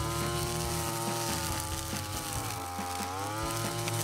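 Backpack brush cutter's small engine running at high speed, its pitch sagging and recovering twice as the spinning nylon cord cuts through grass.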